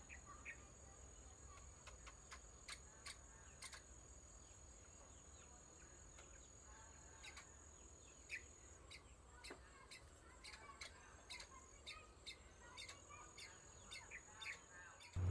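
Faint forest ambience: a steady high-pitched insect drone with scattered short bird chirps and sharp ticks. The drone breaks off for a few seconds a little past halfway.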